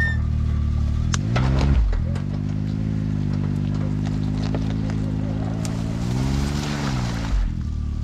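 Can-Am Maverick X3 side-by-side's engine revving under load as the machine drags a downed tree by rope. The pitch lifts and falls about a second in, holds steady, then climbs again near the end before dropping off sharply. There are a few sharp cracks early on and a rising hiss during the last climb.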